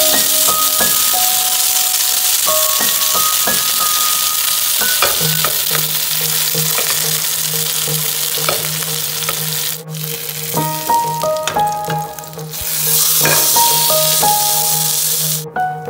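Spice-coated whole fish sizzling as it shallow-fries in hot oil in a pan. The sizzle stops briefly about ten seconds in, then comes back for a few seconds. Background music with piano-like notes plays throughout.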